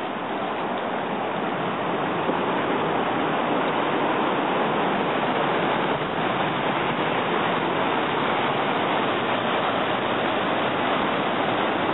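Bhagirathi river, the Ganges headstream, rushing over boulders: a steady, even roar of white water that grows a little louder in the first few seconds and then holds.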